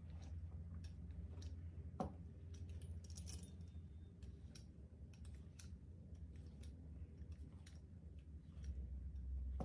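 Small metal blade pressing and scoring into thick slime, giving scattered soft sticky clicks, with a sharper knock about two seconds in and a quick cluster of clicks about a second later.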